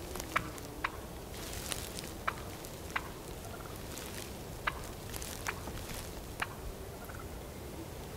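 Wild turkey clucking: short, sharp single notes, about seven, spaced irregularly.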